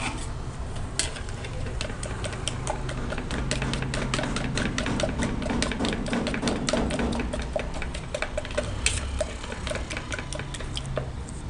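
Rapid, irregular clicking and scraping of a stirring stick against a cup as hardener is mixed into clear polyester resin, over a low steady hum.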